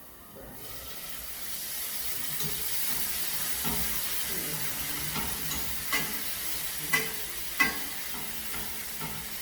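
A cooking pot of green bananas and dumplings bubbling with a steady hiss of steam that comes up about half a second in. A few sharp knocks, likely a spoon against the pot as it is stirred, fall in the second half, the two loudest close together.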